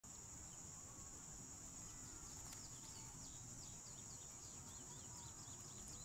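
Faint steady high-pitched insect chorus, with a quick run of short, high falling chirps starting about two seconds in.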